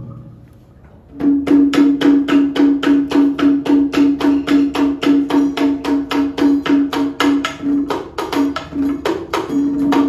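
Traditional Vietnamese percussion struck in a fast, even beat of about four strokes a second, every stroke ringing at the same low pitch. It starts about a second in and falters briefly near the end.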